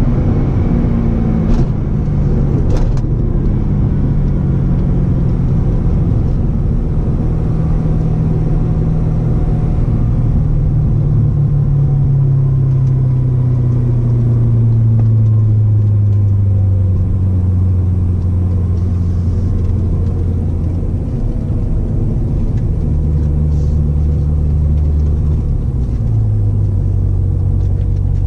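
Corvette ZR1's supercharged 6.2-litre V8, heard from inside the cabin with road noise, its note falling steadily as the car slows from high speed to a crawl, then running at low revs. The note drops lower for a few seconds about three quarters of the way through before settling, and two short clicks come in the first three seconds.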